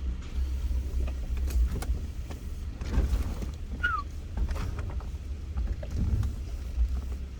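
4x4 vehicle driving slowly over a rocky riverbed: a steady low rumble with scattered knocks and rattles from the body and suspension over the stones, and a short falling squeak about four seconds in.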